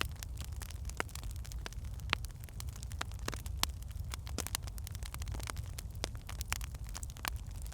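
Wood fire in a fireplace crackling: frequent irregular snaps and pops of burning logs over a steady low rumble of flame.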